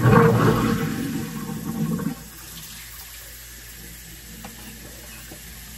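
Kitchen-sink garbage disposal run briefly with water rushing down the drain, to clear water that had backed up in the sink. It runs loudly for about two seconds, then cuts off suddenly.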